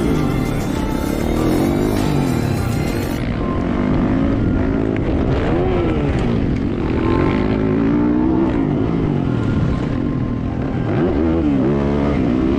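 Motocross dirt bike engine revving, its pitch rising and falling several times as the rider accelerates and eases off over the dirt track, picked up by a helmet-mounted camera.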